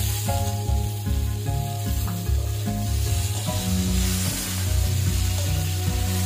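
Chopped tomatoes and onions sizzling steadily in hot oil in a wok as they are stirred with a spatula. Background music with a steady beat plays underneath.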